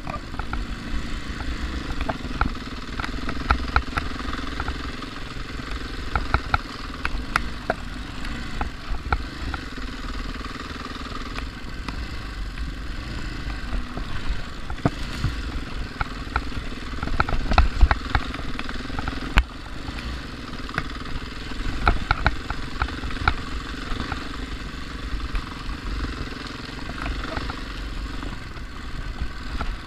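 Dual-sport dirt bike's engine running steadily at low trail speed, with frequent clicks and rattles from the bike jolting over rough dirt.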